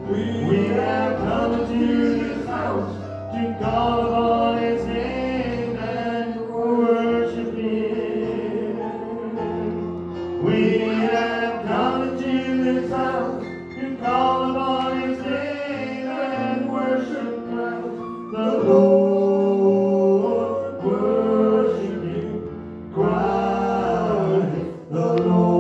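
Gospel worship singing, with voices carrying the melody over sustained keyboard or organ chords.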